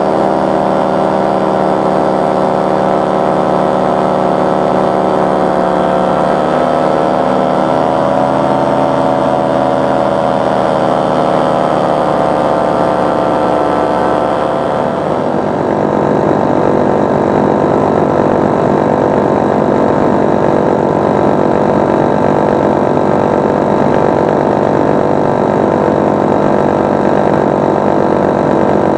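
Powered paraglider's paramotor engine and propeller running steadily in flight. Its pitch wavers up and down through the first half, and about halfway through it turns rougher and a little louder.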